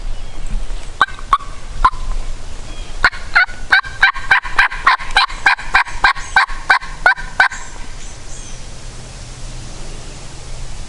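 Turkey yelping: a few single yelps, then a fast run of sharp yelps, about four a second, for four or five seconds.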